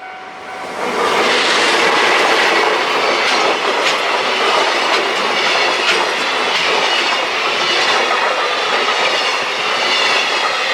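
A diesel train passing close by: a loud, steady rush of wheels on the rails that builds over the first second or two, with the clickety-clack of wheels over rail joints.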